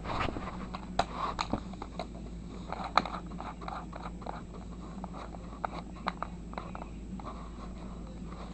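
Irregular clicks and taps of plastic K'nex parts being handled as a drill is fitted to the model engine's crankshaft, with a couple of sharper clicks about a second and three seconds in.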